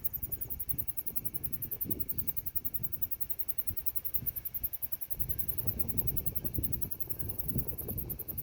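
Wind buffeting the microphone in uneven low gusts, over a fast, steady high-pitched trill of crickets.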